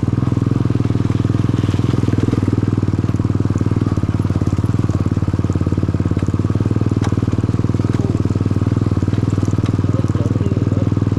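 Motorcycle exhaust running steadily and very loud, a continuous fast pulsing engine note with no change in pitch.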